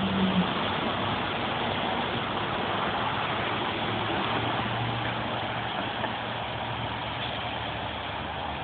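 Steady hiss of road traffic on wet pavement, with a low engine hum for a few seconds in the middle.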